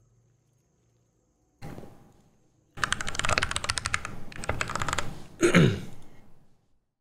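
Typing on a computer keyboard: a quick run of keystrokes, after a single thump about a second and a half in. A short sound gliding down in pitch follows near the end.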